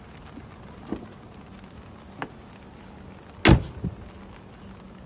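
Two light clicks, then a loud sharp knock a little past the middle with a softer knock just after it, over a low steady hum.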